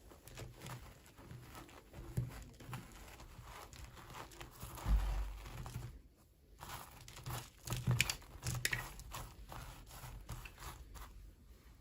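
Toy packaging crinkling and tearing as it is unboxed, with scattered handling clicks. A dull knock about five seconds in is the loudest sound, and there is a short lull about a second later.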